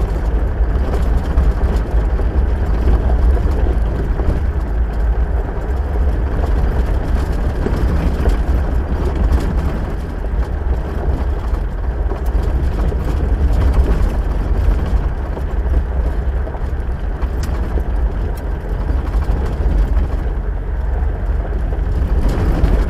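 A vehicle being driven: a steady, heavy low rumble of engine and road noise.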